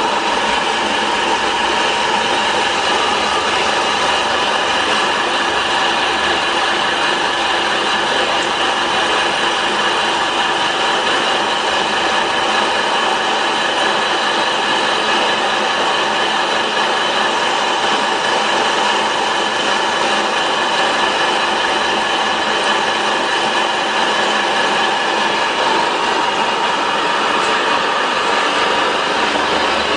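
Small electric animal-feed pellet mill running under load while pressing feed into pellets: a loud, steady machine drone with several high whining tones.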